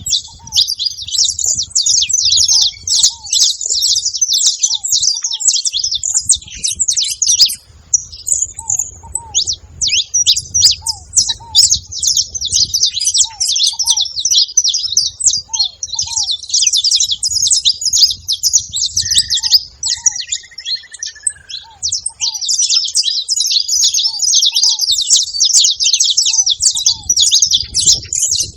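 A group of saffron finches chattering at a feeding spot: a dense, continuous stream of rapid high chirps with brief lulls twice.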